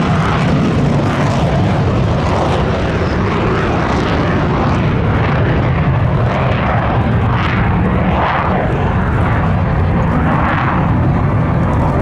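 McDonnell Douglas F-4 Phantom II fighter flying overhead, its twin J79 turbojets giving a loud, steady jet noise.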